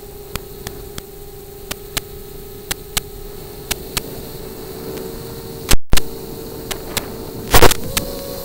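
Static hiss with a steady hum on the audio channel of an analog FPV video link, broken by sharp clicks about once or twice a second. About six seconds in comes a loud crackle with a brief cut-out, and near the end another loud burst of crackle.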